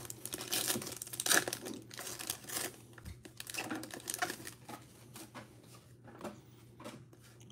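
Foil trading-card pack being torn open and crinkled, then the cards pulled out and handled. The crinkling is densest in the first three seconds and thins to sparse rustles and clicks after that.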